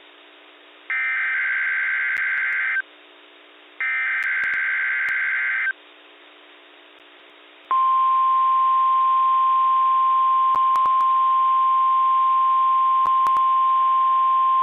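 NOAA Weather Radio weekly test heard through a weather radio receiver. Two buzzing SAME digital header bursts of about two seconds each, with a second of radio hiss between them, end the three-burst alert header. After a short pause, about halfway through, the steady single-pitch 1050 Hz warning alarm tone starts and holds.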